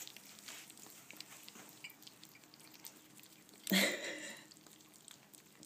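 Ferrets eating soft, moist food from bowls: faint small wet clicks and licking noises, with one louder knock about two-thirds of the way in.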